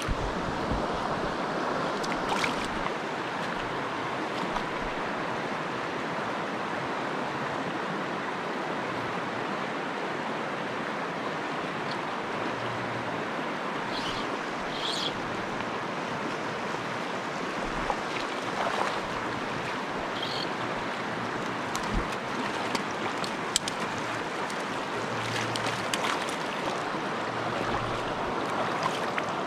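Shallow stream running over rocks and gravel, a steady rush of water, with now and then a brief click or knock.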